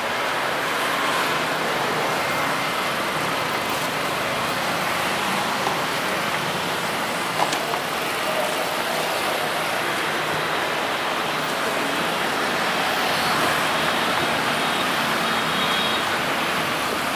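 Steady hum of street traffic, with one brief click a little under halfway through.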